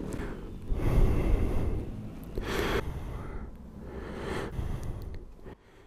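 A few breathy sighs or exhalations from a person, with a low rumble and rustling as he shifts his body; the first, about a second in, is the loudest.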